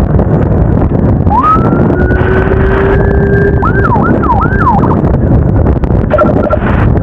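Electronic siren giving a rising wail that holds steady for about two seconds, then three quick falling yelps, and a short burst of rapid beeps about six seconds in. Underneath is the steady engine and wind noise of a moving motorcycle.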